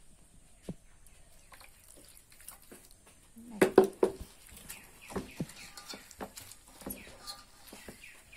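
Wet squelching and splashing of hands squeezing and kneading chopped banana flower in water in a stainless-steel bowl. There are irregular small squishes, with a louder burst of splashing about halfway through.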